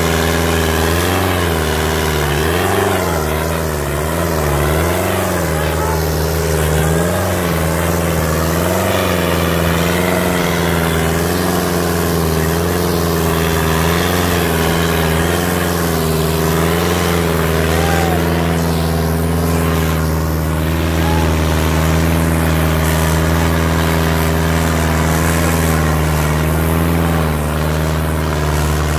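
Sonalika tractor's diesel engine running close by, revved up and down several times in the first few seconds, then held at a steady speed.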